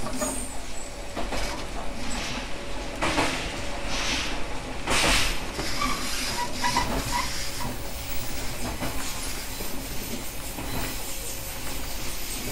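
A 123 series single-car electric train running along the track, its wheels knocking over rail joints about once a second, over a steady rumble and hum. A few short squeaks come a little past the middle.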